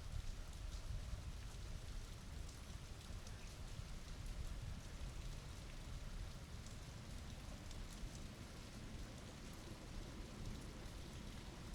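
Steady rain falling during a thunderstorm, with scattered fine drop ticks over a low, continuous rumble.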